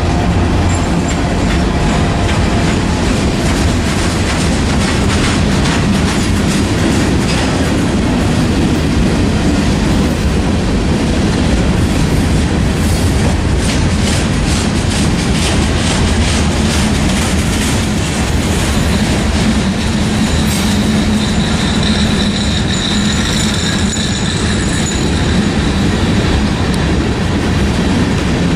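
Freight train cars rolling past, their steel wheels clicking steadily over the rail joints under a continuous heavy rumble. A faint high wheel squeal comes in about two-thirds of the way through.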